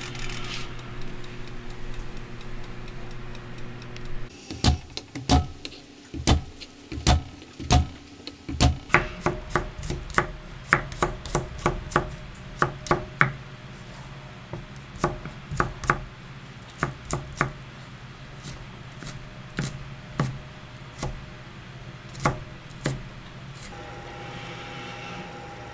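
A chef's knife chopping garlic cloves on a wooden cutting board: a long run of sharp, irregular knocks, quickest in the first half. Before it there are a few seconds of steady low hum from the running air fryer oven.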